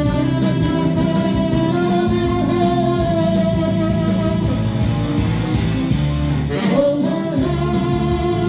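Saxophone playing a slow melody of long held notes over a backing track with guitar.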